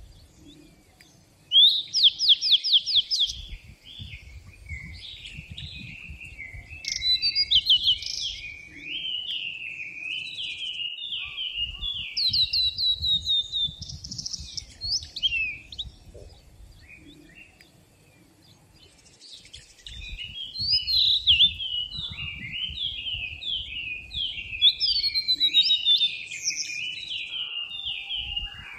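Songbirds singing in woodland: a fast, high trill about two seconds in, then bursts of warbling phrases with short pauses between them, over a faint low rumble.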